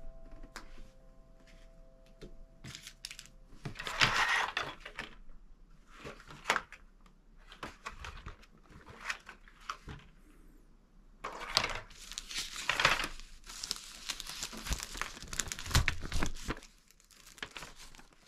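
Irregular crinkling and rustling of something being handled, with scattered light clicks and knocks. Louder bursts come about four seconds in and again around twelve to thirteen seconds in.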